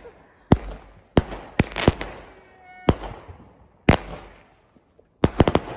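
Fireworks exploding: a string of sharp bangs at irregular intervals, each with a short echoing tail, ending in a rapid cluster of bangs.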